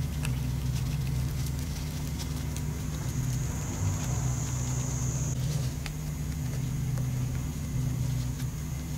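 Steady low mechanical hum, like a motor or fan running, with a faint high whine over it and a few faint clicks.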